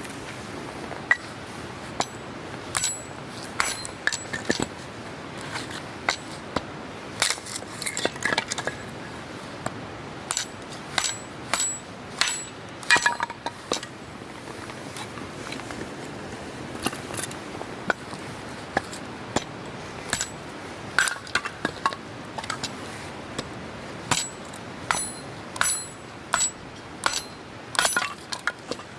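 Repeated sharp metallic clinks and knocks of hard objects being handled, some ringing briefly, coming irregularly with quicker runs near the end, over a steady background hiss.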